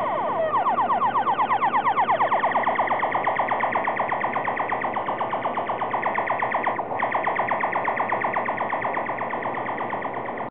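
Korg Monotron analog synthesizer droning, its LFO sweeping the tone down over and over several times a second in a fast wobble. The sound dips briefly about seven seconds in and stops abruptly at the end.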